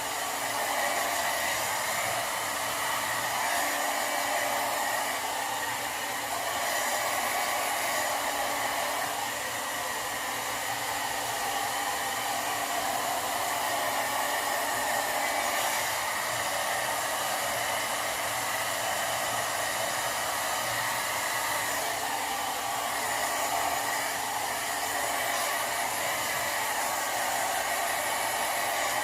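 Sharp IB-WX1 hair dryer blowing steadily while drying long hair. It is a steady rushing of air with a constant motor whine, rising and falling slightly in level as the dryer is moved about.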